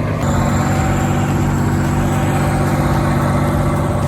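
Heavy vehicle engine running steadily at an even speed, with a faint high whine above it.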